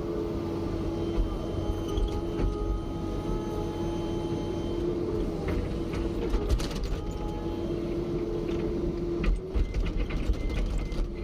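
Backhoe at work: a steady running hum from the machine, with creaking and metallic clicking from the digging arm and bucket, in clusters about six and a half seconds in and again near the end.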